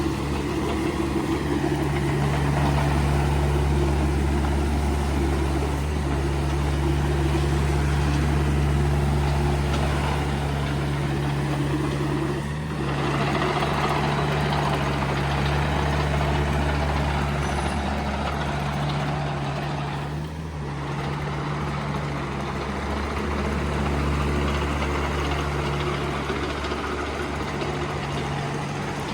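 Komatsu PC45MR-1 mini excavator's diesel engine running steadily, its sound dipping briefly twice.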